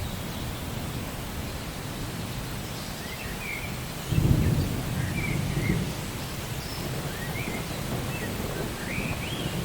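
Steady rain with a low rumble of thunder about four seconds in. A few faint, short high chirps sound over the rain.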